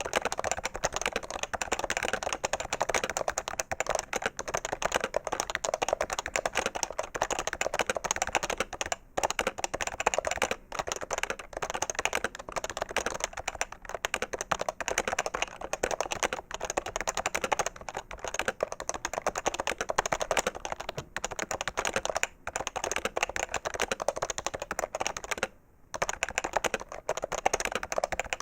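PFU HHKB Professional 2 keyboard with Topre capacitive switches being typed on fast and continuously, a dense run of keystroke clacks broken by a few short pauses, the longest a little before the end.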